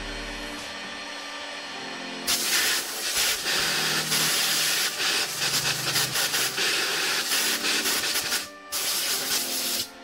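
Compressed-air blow gun hissing in a steady blast that starts about two seconds in and lasts some seven seconds, with a brief break near the end, likely cooling the Kydex after it was heat-formed.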